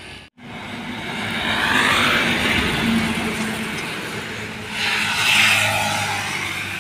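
A heavy cargo truck passing close by and pulling away: steady engine hum with tyre and road noise, loudest about two seconds in. A second swell of road noise follows about five seconds in.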